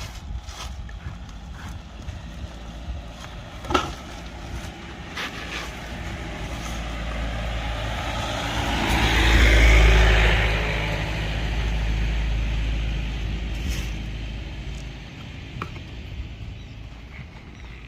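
A motor vehicle passes by: its engine rumble and road noise swell to a peak about ten seconds in, then fade away. A single sharp click about four seconds in.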